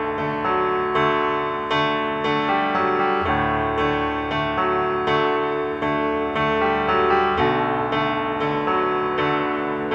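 Background piano music, a steady run of struck notes over chords that change a couple of times.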